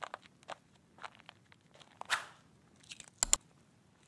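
Sound effects of a YouTube subscribe-button animation: faint scattered crackles, a whoosh about two seconds in as the banner comes on, then two sharp mouse clicks a little after three seconds on the subscribe button and the notification bell.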